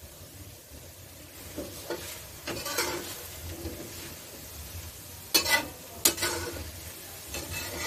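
Metal spatula scraping and clattering against a metal wok as diced pork is stirred and sautéed, over a steady sizzle of frying. The sharpest scrapes come a little past five seconds in and again around six seconds in.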